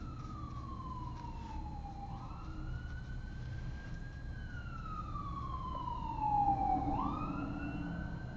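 Siren wailing: slow falling sweeps in pitch, each snapping quickly back up, about two seconds and again about seven seconds in.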